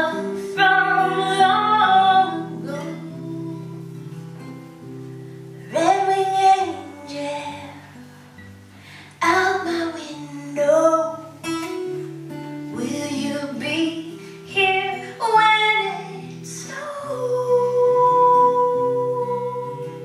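A woman singing a folk song, accompanying herself on acoustic guitar. Her sung phrases come and go over steady guitar chords, and she holds one long note near the end.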